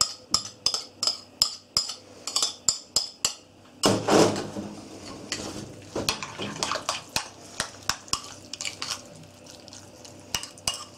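A metal spoon clinking and scraping against a ceramic plate and bowl as chopped egg, gherkins and onion are pushed in, with sharp clinks about three a second at first and a louder, longer clatter about four seconds in. Then the spoon stirs the thick mayonnaise-and-yoghurt sauce, with softer clinks against the bowl.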